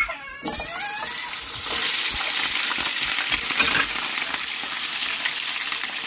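Potatoes frying in a pan of hot oil: a steady, loud sizzle that starts suddenly about half a second in.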